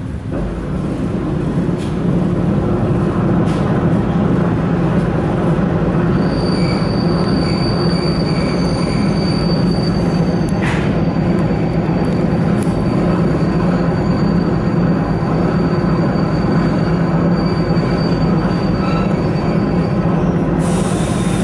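ED4M electric train heard from inside the carriage while running, a steady rumble of wheels and motors that grows louder over the first two seconds. From about six seconds in a thin, high, steady wheel squeal joins it and holds until near the end.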